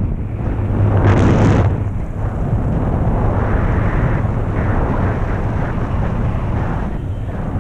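Steady low drone under rushing wind, with a brief louder gust of rushing noise about a second in.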